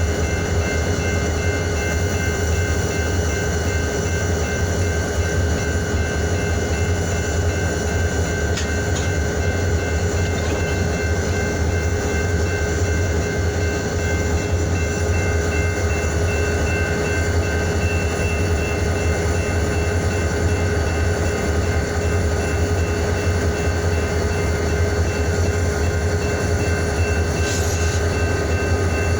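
Diesel-electric locomotive running steadily close by: an even, low engine rumble with a steady hum of tones above it, unchanging throughout.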